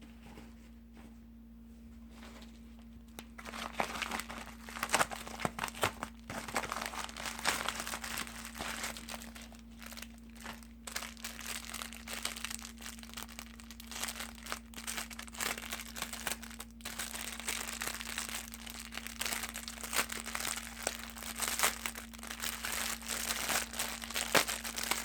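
Plastic packaging of replacement laptop fans crinkling and rustling as it is handled, starting about three seconds in and going on in irregular crackles.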